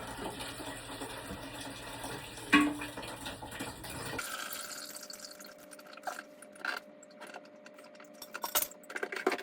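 Leftover water running and splashing out of a toilet tank through the hole where the old fill valve was just pulled out, with a knock about two and a half seconds in. After about four seconds the flow gives way to scattered drips and small clicks.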